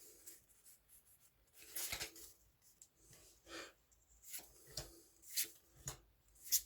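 Pokémon trading cards being slid and flipped over in the hands: a run of short, irregular papery swishes and rubs.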